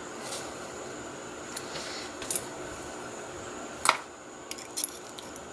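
Small metal clicks and taps as the pins and springs of a Yale pin-tumbler cylinder are worked out with a follower and set down, with a sharper click about four seconds in.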